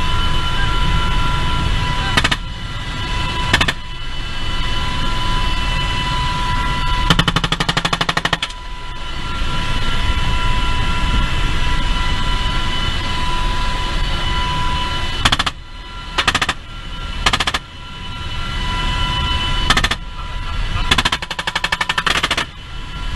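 UH-60 Black Hawk helicopter cockpit noise: steady rotor and turbine drone with a high whine, broken by machine-gun fire. A long rapid burst comes about seven seconds in and another near the end, with single sharp cracks in between.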